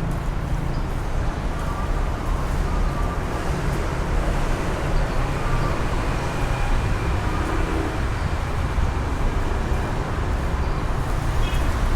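Steady road traffic noise from a busy city street: a continuous rumble of vehicles with no single event standing out.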